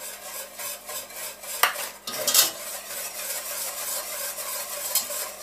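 Wire balloon whisk beating bicarbonate of soda into dark boiled sugar and golden syrup in a stainless steel saucepan: continuous rapid scraping and clinking of the wire against the pan, with a few louder knocks about a second and a half to two and a half seconds in.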